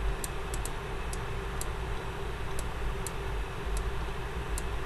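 Faint, sharp ticks at about two a second, unevenly spaced, over a steady low hum.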